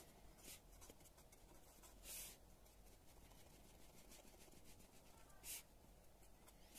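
Faint ballpoint pen writing on a notebook page: soft scratching strokes and light taps as a heading is written and dotted underneath. Two strokes are slightly louder, about two seconds in and near the end.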